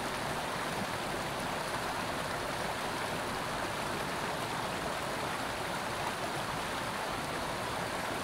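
Small creek running: a steady rush of water.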